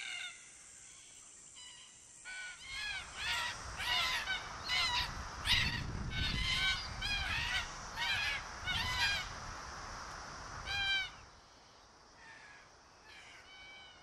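Red-tailed black-cockatoos calling: about a dozen repeated calls in quick succession, each rising and falling in pitch, with a low rumble under them. They tail off about eleven seconds in, leaving a few fainter calls.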